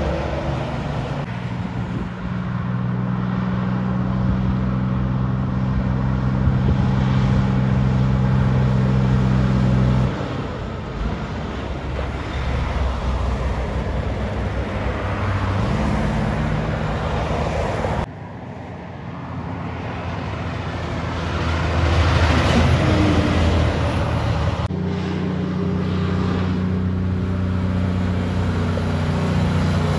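Heavy prime-mover trucks' diesel engines going past one after another: a steady deep engine note over tyre and road noise. The sound changes abruptly a few times, where one truck's pass is cut to the next.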